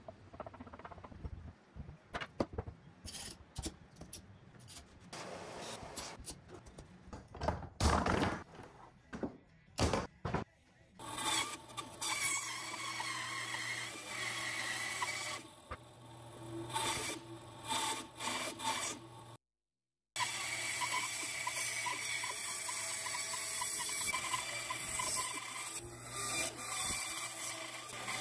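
Scattered knocks and rubbing as glued oak boards are worked by hand, then a Grizzly G0555X bandsaw running steadily while it cuts through a thick red oak block, with a short dropout partway through the cutting.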